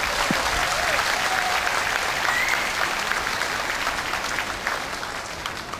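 Audience applauding steadily, with a few faint voices mixed in; the applause tapers off a little near the end.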